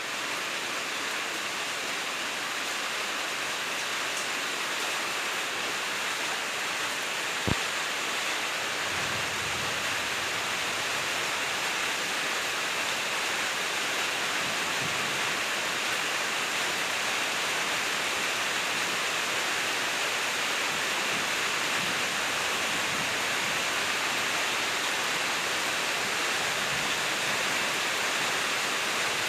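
Steady rainfall, an even hiss of falling rain, with one sharp tap about seven and a half seconds in.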